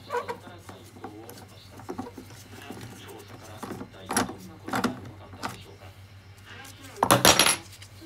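Metal hand tool clicking and clinking as a screw is turned in the plastic housing of a Miele vacuum cleaner with a T-handle screwdriver, with a louder burst of ringing metallic clatter about seven seconds in.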